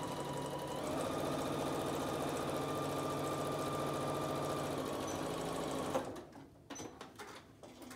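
Electric domestic sewing machine running steadily at speed, stitching a straight seam through fabric and a paper-piecing template. It speeds up slightly about a second in and stops abruptly about six seconds in, followed by a few light clicks.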